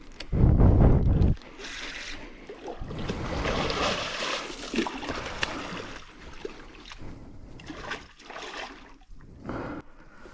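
A brief loud low rumble on the microphone about half a second in, then water splashing.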